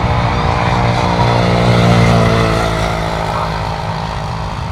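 Jet airliner's engines passing close: a low rumble with a steady layered whine that grows loudest about two seconds in, then fades.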